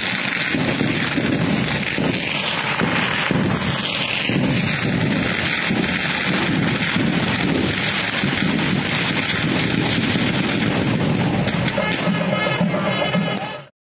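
Temple festival din: drums beating in a steady rhythm with firework crackle over it. The sound fades out quickly near the end.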